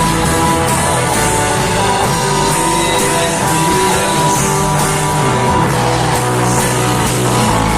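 Live worship band playing an instrumental passage, with the guitar up front over a steady rock beat.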